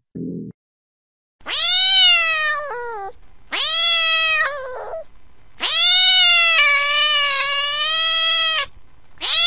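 Domestic cat meowing: three drawn-out meows, the third the longest at about three seconds, with a fourth beginning near the end. The first two drop in pitch as they finish.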